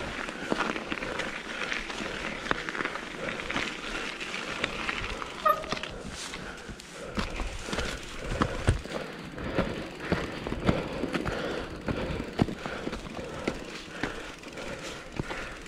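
Mountain bike on a snowy trail: continuous crunching of snow under the tyres with irregular rattling clicks from the bike.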